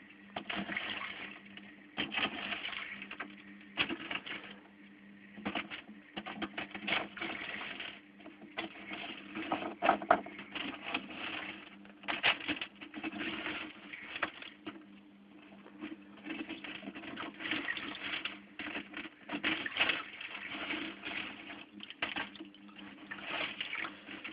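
Irregular clicking, tapping and rustling, typical of hands and tools working inside a home aquarium, over a steady low hum.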